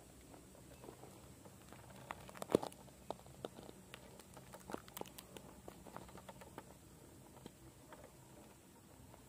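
Scattered light clicks and taps of an RC rock crawler's rubber tyres and loose grit on rock as it crawls slowly over a stone face, with one sharper tap about two and a half seconds in.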